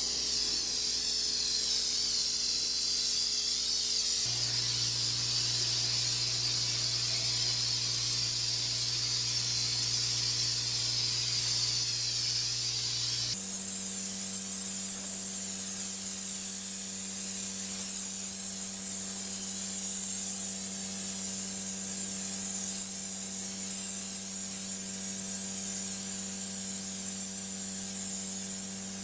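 Pressure washer spraying water, a steady high hiss with a steady low hum alongside it. The sound changes abruptly twice, about four seconds in and again about halfway through.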